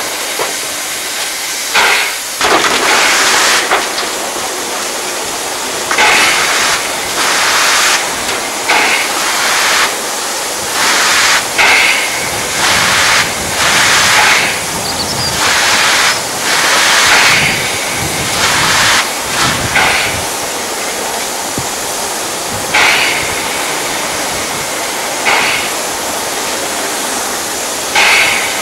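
Hunslet 0-6-0ST saddle tank steam locomotive blowing off steam from low at the front by its cylinders: a steady hiss broken by loud, irregular bursts of steam every second or two.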